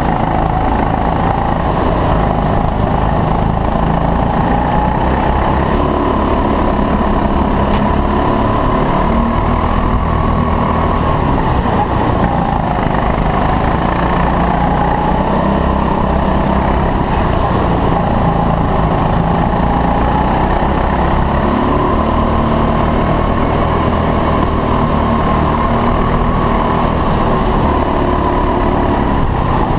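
A 6.5 hp rental go-kart engine heard from on board under racing throttle. Its pitch rises and falls as the kart accelerates out of corners and lifts into them.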